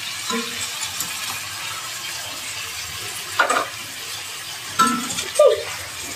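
Cassava slices frying in hot oil in a wok, giving a steady sizzling hiss. A few brief, louder, sharper sounds break over it about three and a half and five seconds in.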